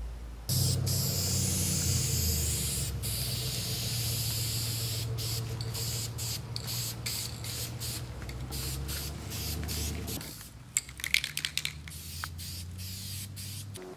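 Aerosol spray can hissing in long bursts with short breaks, over a steady low hum. Near the end the hiss stops and there is a quick run of sharp clicks.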